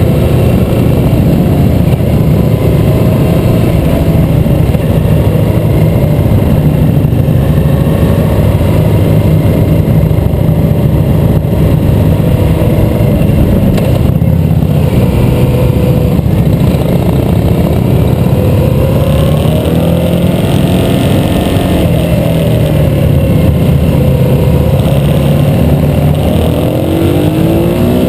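Harley-Davidson V-twin motorcycle engines running under way, heard from on board a moving bike. The engine note is loud and continuous, and its pitch rises and falls with the throttle in places.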